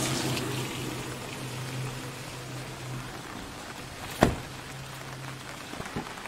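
Steady rain falling, with a low steady hum that stops about five and a half seconds in. A single sharp snap about four seconds in as an umbrella is popped open, then a smaller click near the end.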